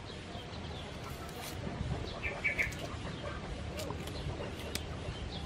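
Quiet outdoor background of chickens clucking and small birds calling, with a brief cluster of short calls about halfway through. A few soft clicks come from a paring knife peeling a shallot.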